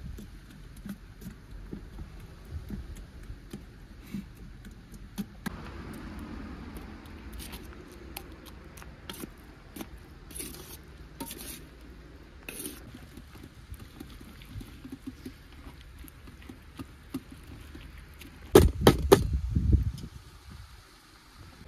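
Light clinks and knocks of objects being handled, scattered at irregular moments, with a short burst of louder rapid clattering near the end.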